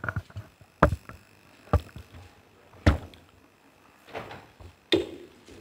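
A handful of sharp knocks and thumps, five or six spread over a few seconds, from the microphones and recorders on the table being handled and bumped.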